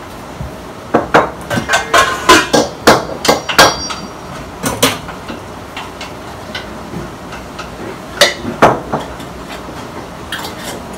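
Metal cookware clanking at a frying pan on the stove: a quick run of sharp knocks in the first few seconds, then a couple more about eight seconds in.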